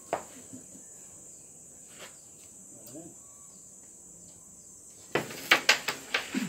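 A cue striking a flat disc on a wooden pool table about five seconds in, followed by a quick run of five or six sharp clacks as the disc knocks off the rails and other discs. A steady high insect hiss runs underneath.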